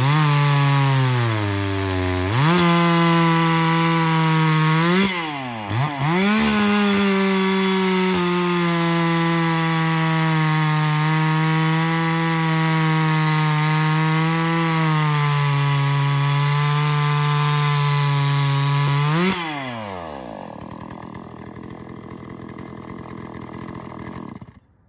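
Ported 43 cc two-stroke Neotec NH843 chainsaw (a Husqvarna 543XP clone with its base gasket deleted) cutting through a log at full throttle. The engine pitch sags under load and picks back up twice in the first few seconds, then holds steady. Near the end it drops to a quieter idle.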